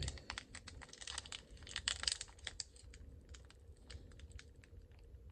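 Foil wrapper of a sealed trading-card pack crinkling and crackling in the fingers as it is worked at to tear it open, a tough wrapper that resists. A quick run of small irregular crackles, busiest about two seconds in.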